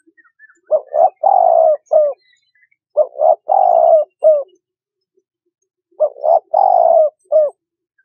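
Spotted dove cooing: three phrases about three seconds apart, each two short coos, a long drawn-out coo and a short closing note.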